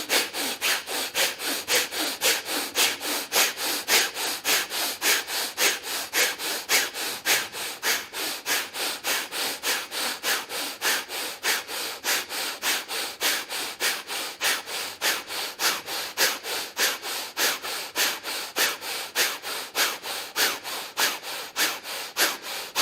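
Rapid, forceful bhastrika (bellows) breathing through the nose, sharp inhales and exhales in an even rhythm of about three strokes a second, held without a break.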